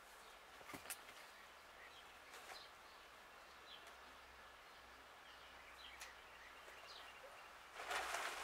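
Quiet rural outdoor ambience with faint short bird chirps now and then and a brief click about a second in; near the end a louder rustling noise sets in.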